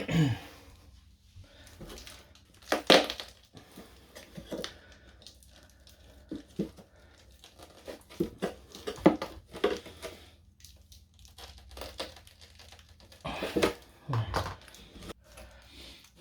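Crinkling, rustling and tearing handling noises from hands at work on an opened battery case, with scattered sharp knocks, the loudest about three, nine and thirteen seconds in.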